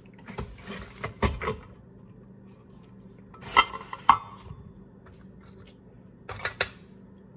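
Kitchen clatter of dishes and utensils being handled: a run of knocks and clinks in the first second and a half, a couple of clinks with a brief ring about four seconds in, and two sharp clicks near the end.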